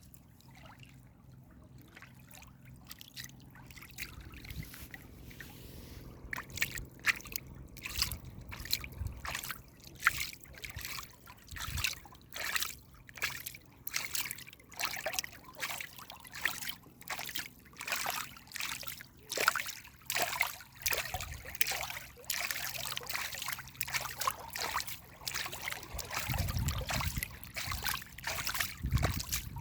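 Water trickling and splashing, with a long run of sharp, evenly spaced sounds, about two a second, starting a few seconds in and growing louder, and a low rumble near the end.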